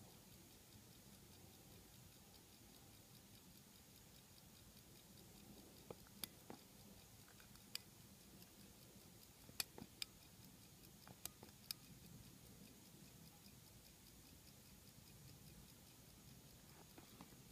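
Gold-filled chronograph pocket watch ticking faintly and steadily, with a few sharper, louder clicks between about six and twelve seconds in.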